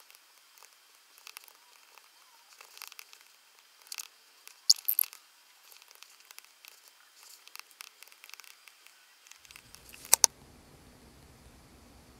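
Apple Pencil tip tapping and sliding on an iPad's glass screen while drawing: a string of light, scattered ticks with a louder flurry of taps about five seconds in. Two sharp clicks come about ten seconds in.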